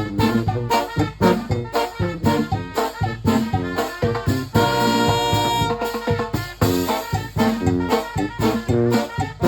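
Banda brass band playing an up-tempo tune: brass and woodwinds over a steady percussion beat, with one long held chord about halfway through.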